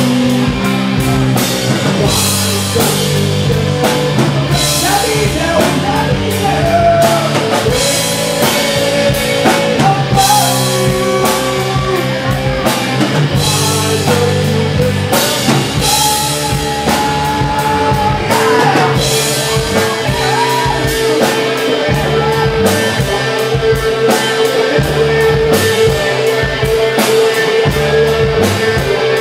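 Live rock band playing: drum kit with frequent cymbal crashes, bass and electric guitar under a male singer singing into a microphone.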